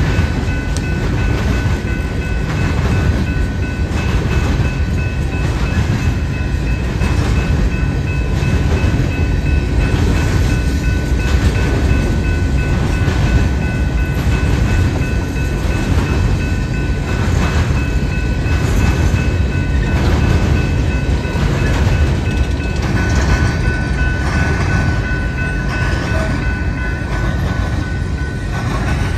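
Empty coal hopper cars of a freight train rolling past, their wheels clacking in a steady rhythm of about one clack a second, with a steady high tone running over the rumble.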